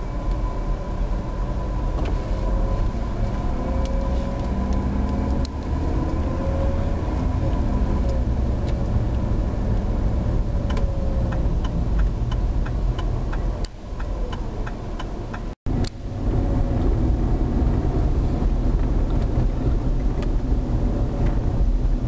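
Car driving, heard from inside the cabin: steady engine and road rumble. Near the middle comes a run of evenly spaced clicks, and the sound cuts out for an instant about two-thirds of the way through.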